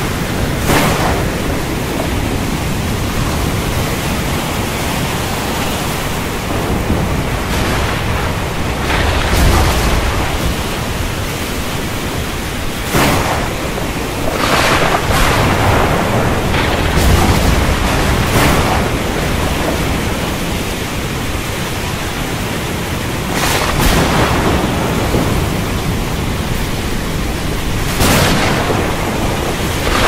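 Storm at sea: a steady, loud rush of wind, rain and surf, with about eight brief surges of breaking waves. Low rumbles of thunder come in about a third of the way through and again just past halfway.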